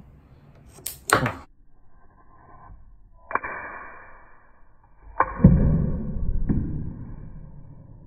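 Side cutters working on a Dyson V6 battery pack's board: a sharp snip about a second in, then a sudden ringing clink, and the loudest sound a heavy thud with a low rumble that dies away over about two seconds.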